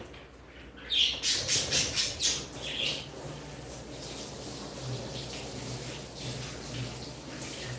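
Kitchen tap water running as celery is rinsed under it. About a second in, there is first a quick run of short, sharp sounds.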